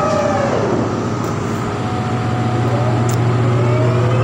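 A heavy diesel engine runs over a steady low machinery hum. Its pitch falls away in the first second and climbs again near the end as it revs up and eases off under load.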